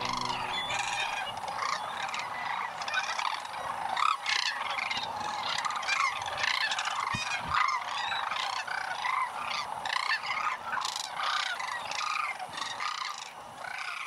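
A large flock of sandhill cranes calling, many calls overlapping without a break.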